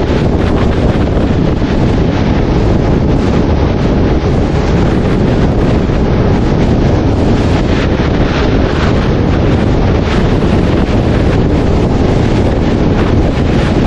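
Loud, steady wind rumble on the microphone, with no distinct engine note standing out.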